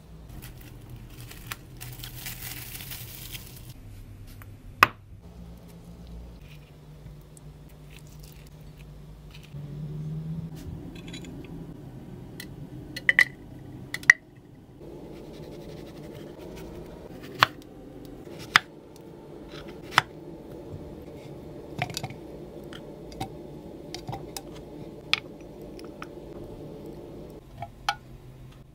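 A chef's knife slicing through a ripe avocado on a wooden cutting board with a soft scraping sound, then a series of sharp clicks and knocks as blueberries, strawberry pieces and avocado chunks drop into a blender cup.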